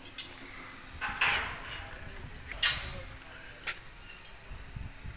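Hatchback tailgate of a 2010 Holden Barina being handled open: a short rushing noise about a second in, then two sharp clicks about a second apart.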